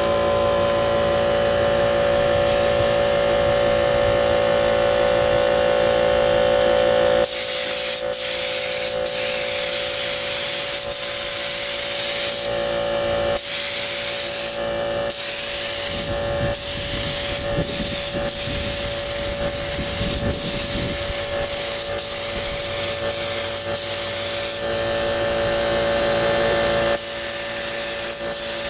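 Air compressor motor running with a steady hum. From about seven seconds in, a paint spray gun fed by it hisses loudly while spraying paint, in long stretches with many short breaks where the trigger is let go.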